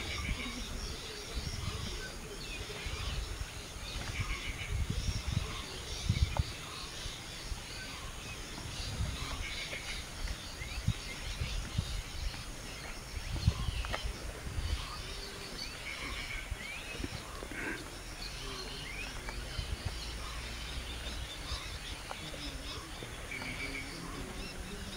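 Outdoor ambience: birds chirping, with one short trilled call coming back every several seconds, over irregular low rumbling and soft thumps.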